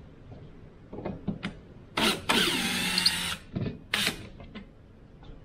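Cordless drill backing a screw out of a wooden crate lid: a few clicks as the bit is seated, the motor whines for about a second and a half, then a short second burst.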